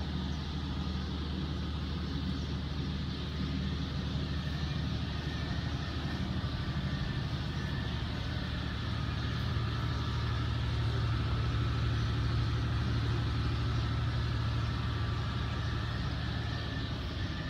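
An engine running steadily: a low, even drone that grows a little louder about halfway through and eases off again.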